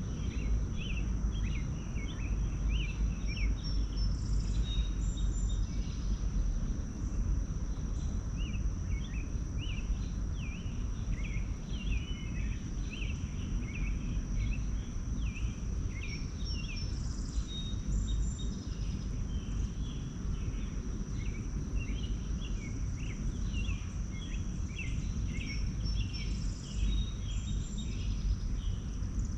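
Small wild birds chirping in quick short notes, many in a row throughout, over a continuous thin high-pitched whine and a low rumbling background noise.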